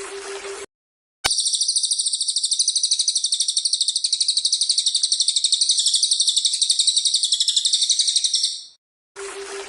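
A small songbird's long, very fast, high-pitched trill, held steadily for about seven and a half seconds before it tails off. It is a masteran tutor-song recording of the kind played to train songbirds. Short bursts of hiss with a low hum come at the start and near the end.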